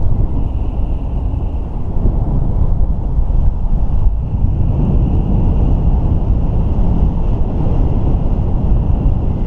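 Wind rushing over the microphone of a camera carried on a paraglider in flight: a loud, steady low rumble of airflow.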